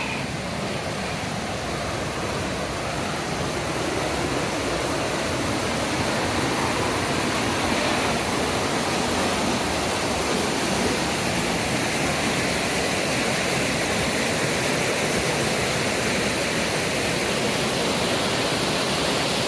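Steady rushing of fast-flowing river water, an even roar of whitewater with no breaks.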